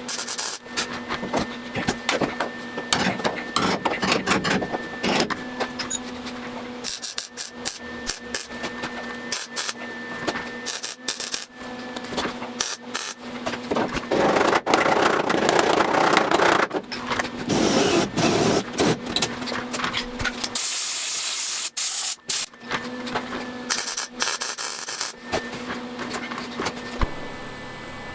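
Sheet-metal patch-panel work on a car body: irregular crackling runs of welding mixed with stretches of grinding or filing, over a steady hum that stops and starts.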